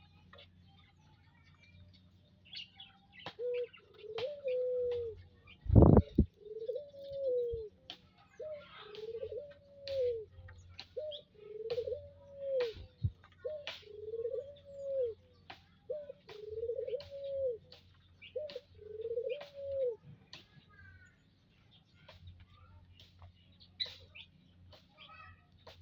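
A dove cooing, a long run of short arched coos about one a second that stops about two-thirds of the way through, over many small birds chirping, likely the aviary's munias. One loud thump about six seconds in.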